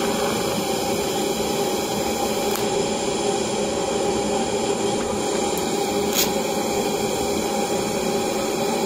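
Steady hiss and hum of a TIG welding arc from a Parkside PMPS 200 welder, running without a break, with a faint click about six seconds in.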